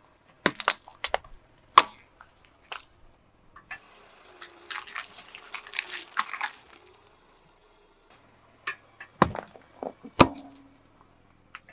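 Car tyre rolling slowly over small objects and crushing them. Sharp plastic cracks come in the first two seconds as a plastic jar gives way. In the middle there is a run of crackling as the tyre goes over a foil tray of water beads. Two loud crunches come near the end as something crunchy is flattened.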